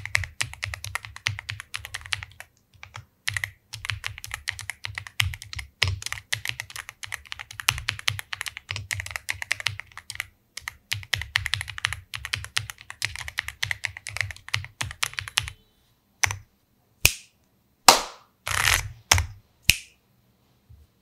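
Typing on a MageGee wireless mechanical keyboard: rapid, continuous key clicks for about fifteen seconds, then a few separate keystrokes and short flurries before the typing stops near the end.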